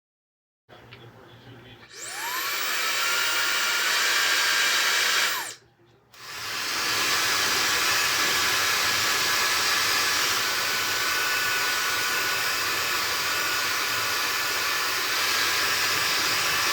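High-speed ionic hair dryer with a 110,000 RPM motor switched on: a whine rises steeply as the motor spins up, then settles into a steady rush of air. It cuts off briefly about five seconds in, then starts again and runs steadily.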